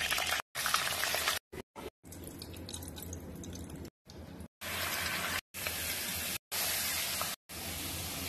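Hot oil sizzling in a kadai as potato pieces, then whole spices and chopped onion fry, stirred with a wooden spatula. The sizzle stops dead and starts again several times, at quick cuts between short clips.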